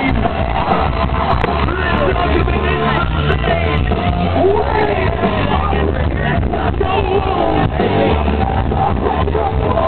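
Live hard rock band playing loud through a festival PA, with a singer's voice over heavy bass and drums, and the crowd shouting around the microphone. It sounds dull and muffled, with no treble, as from a small camera microphone in the middle of the pit.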